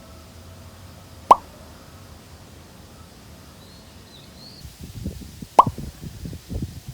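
Two short, bright 'plop' pops with a quick upward bloop, about four seconds apart, like the bubble-pop sound effects that go with on-screen captions. From a little before the second pop, low irregular bumps and rumbles set in.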